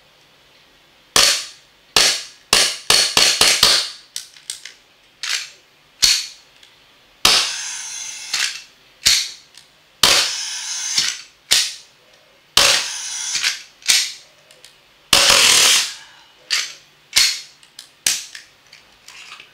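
WE Glock 19 gas-blowback airsoft pistol firing about a dozen shots at uneven spacing, with a quick string of five or six about two to four seconds in. Several shots trail off in a hiss of gas lasting about a second.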